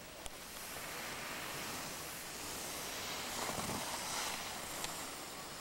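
Skis sliding over packed snow, a steady hiss that swells louder about three and a half seconds in as a skier passes close to the camcorder.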